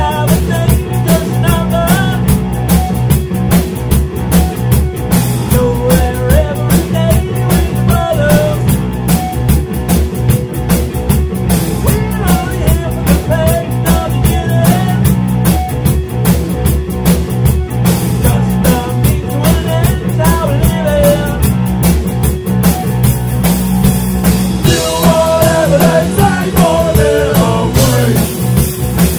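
Blues-punk band playing an instrumental passage live: a steady drum-kit beat with cymbals under an amplified guitar line.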